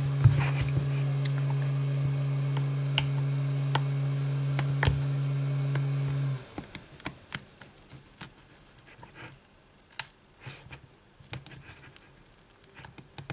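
A steady low hum cuts off suddenly about six seconds in. After it come faint scattered clicks and scratches as a metal pry tool works under the edge of a cracked iPad 2 touchscreen glass.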